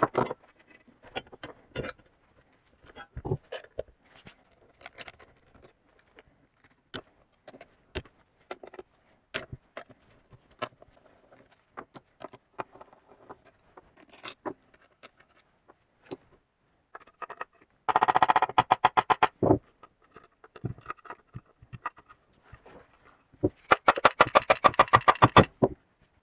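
Metal parts and hand tools clicking and knocking as a Tomos moped engine is taken apart, its crankcase opened. Twice, in the second half, there is a short run of rapid, even clicking.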